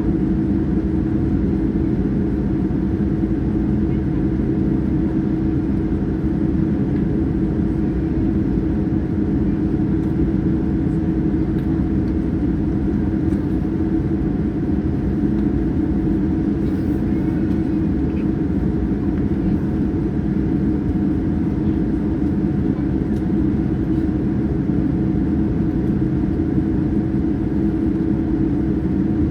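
Steady cabin roar inside a Boeing 787-9 airliner in flight, engine and airflow noise with a constant low hum.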